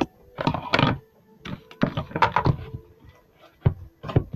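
Slime stuffed with foam pieces and eraser bits being squeezed and kneaded by hand: a run of irregular squishing, popping noises, several short bursts a fraction of a second long.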